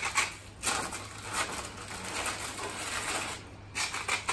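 Salt grinder twisted by hand over meat, grinding out salt in a rapid, gritty stream of fine crackles, in spurts with short pauses, one of them near the end.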